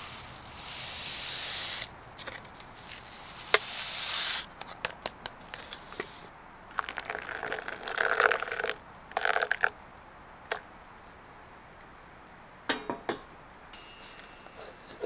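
Instant coffee mix tipped from a stick sachet into a wooden kuksa cup, two soft hissing pours, then hot water poured from a kettle into the cup for about three seconds, with a few light clicks and taps between.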